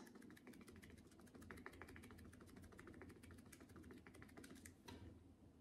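Faint, rapid tapping of a foam sponge wedge dabbed over and over on cardboard, working paint out to blend it, many light taps a second that stop shortly before the end.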